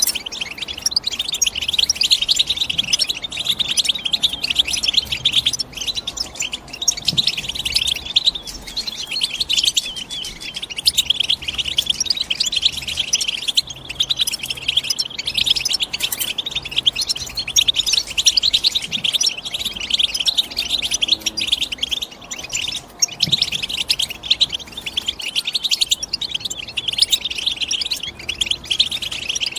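European goldfinch singing: a long run of rapid, tinkling twitters and chirps with a few brief pauses.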